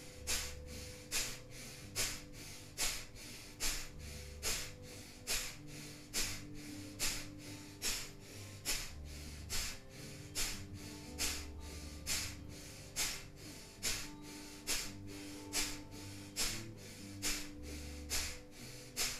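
A person breathing hard and rhythmically through the nose, about three sharp breaths every two seconds, paced to kundalini shoulder shrugs (inhale shoulders up, exhale shoulders down). Soft background music with sustained notes runs underneath.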